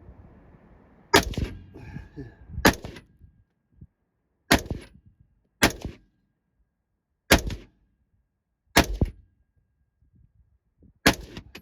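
Colt .223/5.56 semi-automatic carbine fired seven times at an uneven pace, one to two seconds apart, each shot a sharp crack with a short tail.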